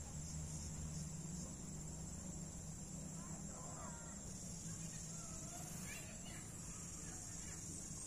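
Sooty-headed bulbuls calling in short chirps and whistles from about three seconds in, over a steady high-pitched drone of insects.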